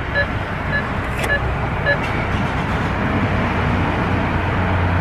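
Steady motor-vehicle noise with a low hum, with a run of short high beeps, about two a second, that stop about two seconds in.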